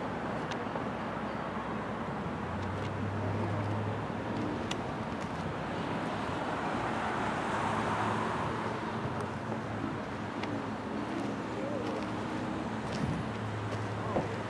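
Outdoor street ambience: steady road traffic noise, with a vehicle passing and swelling loudest about eight seconds in.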